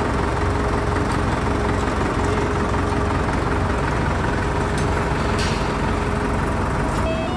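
Heavy diesel machinery running steadily: a deep, even engine rumble with a faint steady whine that fades out about six seconds in. Near the end, a beeping electronic tune starts up.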